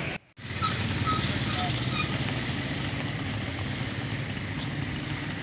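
A vehicle engine running steadily, a low even rumble, with faint voices in the background. The sound drops out for a moment just after the start.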